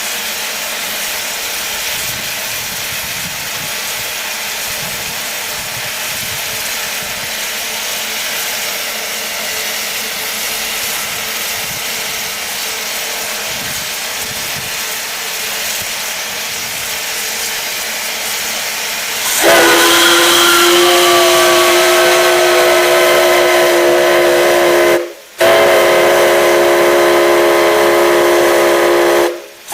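Steam hissing steadily, then about two-thirds of the way through a steam whistle opens up suddenly and sounds a loud chord of several steady tones. It is shut off briefly about six seconds later and sounds again, stopping right at the end.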